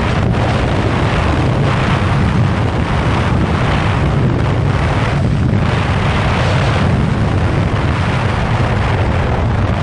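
Wind buffeting the microphone on a moving motorcycle, gusting louder and softer, over the steady drone of a 2015 Yamaha FZ6R's inline-four engine.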